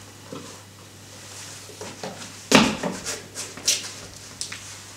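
A few sharp knocks and clatters, the loudest about two and a half seconds in, over a low steady hum.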